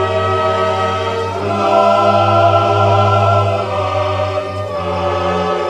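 Music of sustained held chords that shift to new chords about a second and a half in and again near four seconds.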